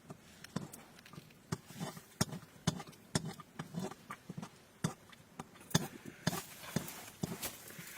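Irregular sharp clicks and knocks, several a second, with a short hiss about six to seven and a half seconds in.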